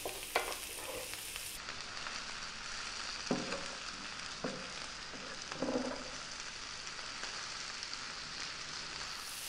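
Sliced onion, celery, mushrooms and bell pepper frying over medium heat with a steady sizzle, stirred with a wooden spoon that scrapes and knocks softly against the pan a few times.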